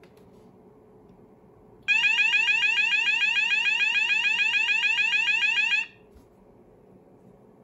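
Roshni LP (ROLP/SV) electronic fire alarm sounder sounding one of its programmed tones: a fast, repeating rising sweep. It comes on abruptly about two seconds in and cuts off about four seconds later.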